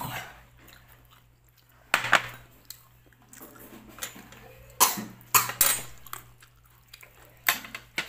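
Close-up eating and food handling over a plate: a handful of sharp clicks and taps, loudest about two seconds in and again around five seconds, over a low steady hum.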